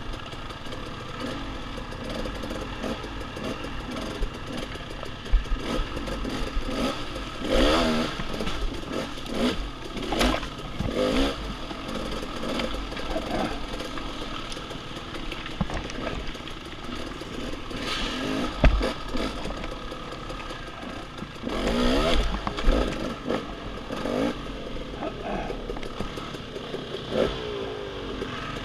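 Off-road dirt bike engine running, revving up and down repeatedly during trail riding, with a few sharp knocks and clatter from the bike.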